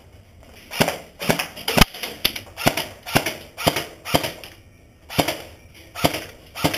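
Airsoft guns firing single shots: about a dozen sharp cracks at an uneven pace of roughly two a second, with a brief pause about two-thirds of the way through.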